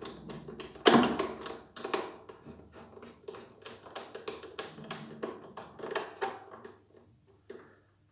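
Flat screwdriver tightening the screw in the plastic front cover of a Kärcher pressure washer: a run of small clicks, scrapes and creaks, with a louder knock about a second in, dying away near the end.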